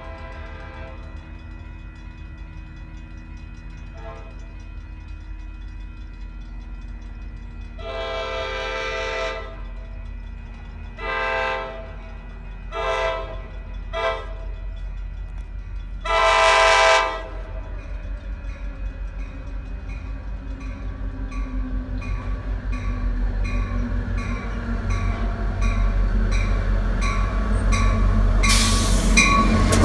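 Horn of an approaching Coaster F40PHM2-C diesel locomotive sounding five blasts: a long one, three shorter ones and a final long one. Then the train's rumble and a regular ticking grow steadily louder as it nears, ending in a loud rush as the locomotive reaches the platform near the end.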